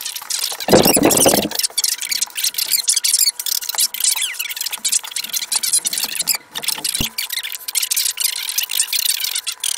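Leather being handled and cut with a knife against a metal straightedge on a wooden bench: rapid high scratching and clicking, with a heavier thump about a second in and a sharp tap around seven seconds.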